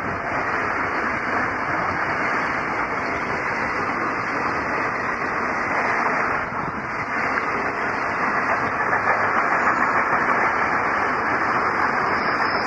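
Container wagons of a long intermodal freight train rolling past on the rails: a steady noise of wheels on track.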